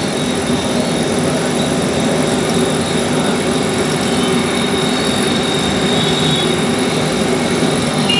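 Steady roar of a commercial stove burner under a large aluminium pan of milky water that is coming to the boil.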